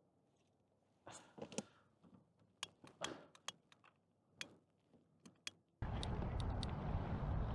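Scattered sharp clicks and light knocks of gear being handled, then about six seconds in a sudden switch to steady wind noise.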